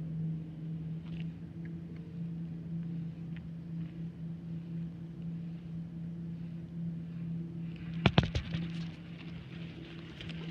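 Boat motor running with a steady, even hum, and a short clatter of knocks about eight seconds in.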